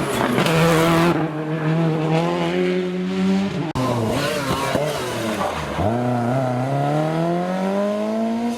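Historic rally car engine at full throttle, its pitch climbing as it accelerates. A little under four seconds in the sound breaks off abruptly, then the engine comes back low and climbs steadily again under hard acceleration, with a noisy rush in the first second.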